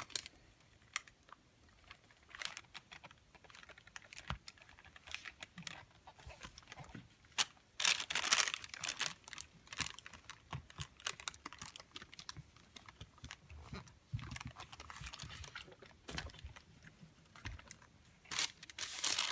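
A household iron pressed and slid over parchment paper laid on a headphone band, giving scattered small clicks and taps, with scratchy rustling about eight seconds in and again about fourteen seconds in.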